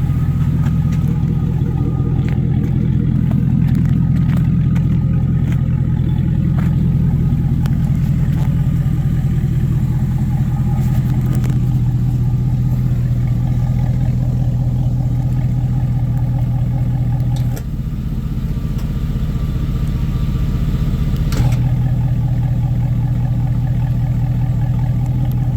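Car engine idling through an open electric exhaust cutout. About two-thirds of the way in, the exhaust note turns quieter and softer for about four seconds and then comes back louder, as the cutout closes and reopens.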